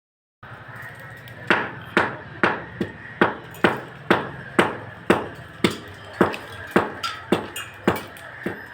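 Repeated hammer blows, about two a second, each a sharp strike with a short ring, over a steady background hum.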